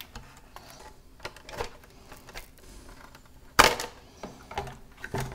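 Scattered light clicks and taps of laptop parts being handled and pried during disassembly, with one loud sharp click about three and a half seconds in.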